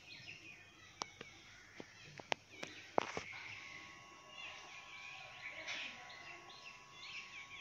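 Wooden spoon knocking and scraping against a metal pot while curd is stirred into a thick masala, with a handful of sharp knocks in the first three seconds. Birds chirp in the background through the second half.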